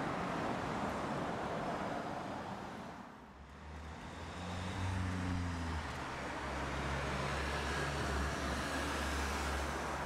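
Road traffic noise, a steady rush of passing cars. It dips about three seconds in, then a low, steady engine hum comes in.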